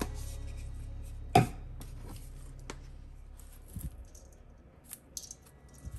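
Seasoning being shaken from a container onto raw chicken drumsticks in a stainless steel bowl: a sharp click about a second and a half in, then faint ticks and a light rustle of falling granules.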